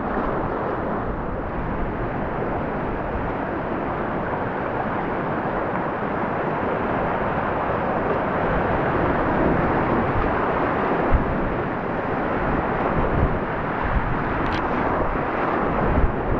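River whitewater rushing steadily in a dense, even noise that grows a little louder past the middle, with one or two faint brief clicks.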